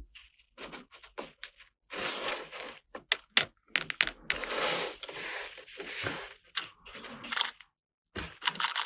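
Plastic toy kitchen pieces being handled, giving a series of sharp clicks and taps and several short scraping rubs. A quick run of clicking comes near the end.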